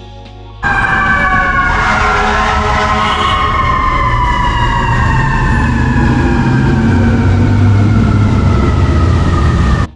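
Emergency vehicle siren, its pitch sliding slowly downward over several seconds over a loud low rumble of traffic. It starts abruptly about half a second in and cuts off suddenly near the end.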